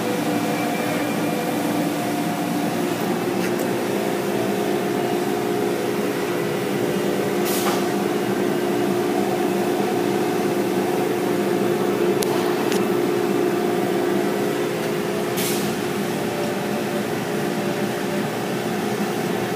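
Car wash machinery running steadily, a hum with several steady tones heard through the glass of the waiting area, with a few short hisses about a third and three-quarters of the way through.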